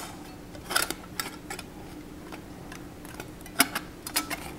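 Stainless steel panels of a Bushbox folding wood stove clinking and clicking as a piece is slotted into the side slits and locked into place. There are a few light metal taps about a second in and a quicker cluster near the end.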